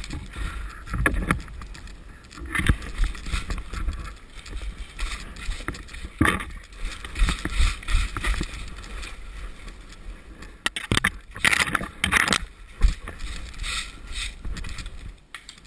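Footsteps in snow and bare branches brushing against the camera and clothing, over a low rumble of wind or handling noise on the microphone. The loudest brushing comes twice in quick succession, about eleven and twelve seconds in.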